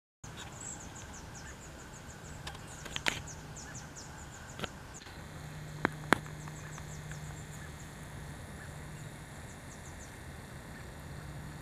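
Runs of quick, high, falling chirp notes from small wildlife over a low steady hum, with a few sharp clicks, the loudest two close together a little past the middle.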